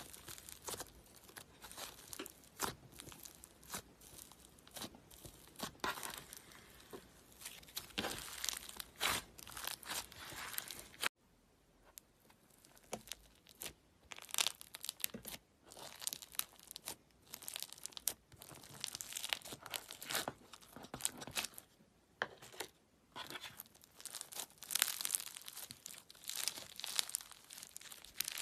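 Slime being squeezed, stretched and pressed by hand, giving dense, irregular crackling, popping and crinkling sounds. About eleven seconds in, the sound cuts off abruptly into a brief quiet gap, then the crackling starts again.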